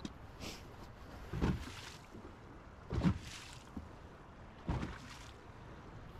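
Noise of a fishing boat on open water: three short surges about a second and a half apart, from water slapping the hull and wind buffeting the microphone, over a steady low rumble.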